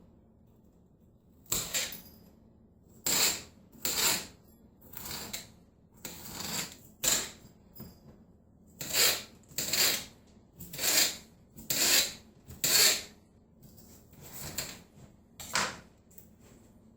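Knife slicing a green bell pepper into strips on a cutting board: a crisp cut ending in a knock on the board, repeated about once a second with uneven spacing, a dozen or so cuts.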